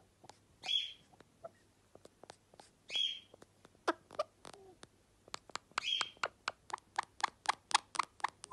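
Blue Indian ringneck parakeet making three short raspy chirps spaced a few seconds apart, and a run of sharp clicks that quickens to about five a second in the second half.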